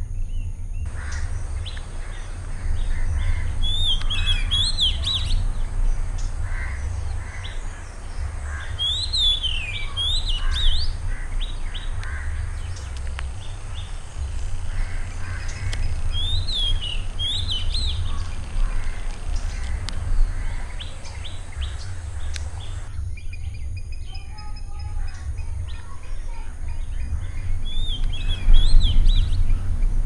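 Wild birds chirping and calling. One bird repeats a short phrase of quick rising and falling whistled notes four times, several seconds apart, over a steady low rumble.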